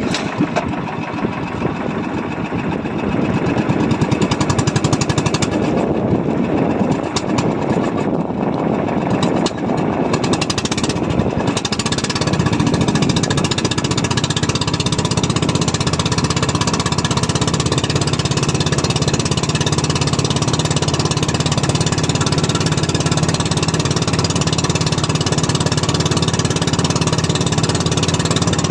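Fishing boat's engine running loud and steady with a rapid chugging rattle, growing louder about four seconds in and again around twelve seconds, then holding steady.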